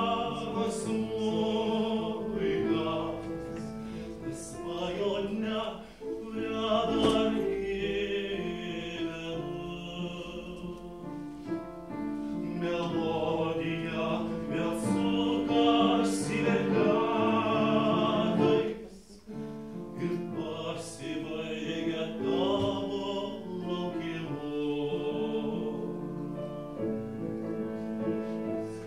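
Mixed choir of men's and women's voices singing a tango to piano accompaniment, in phrases with two short breaks between them.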